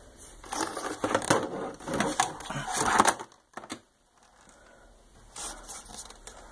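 Irregular knocks, scrapes and rattling of things being handled and moved about, for about three seconds. After a gap of about a second, a few softer knocks follow near the end.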